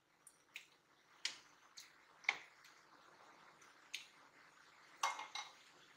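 Black spatula clicking and scraping against a non-stick kadhai as chunks of tomato are stirred: a few scattered light taps, the loudest about two seconds in and again about five seconds in.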